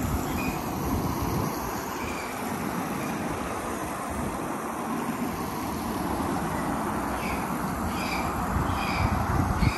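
Wind buffeting the microphone: a steady rush with uneven low rumbling. Short high chirps come through a few times, several close together near the end.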